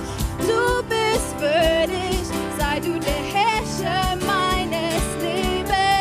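Worship band music: a singer's wavering melodic line over a steady drum beat and sustained instrumental backing.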